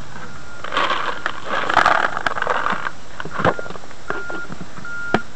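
Carp fishing pellets poured from a clear plastic tub into a bucket, a rattling pour about a second in lasting some two seconds, followed by a few sharp clicks of the plastic lid being handled and put back.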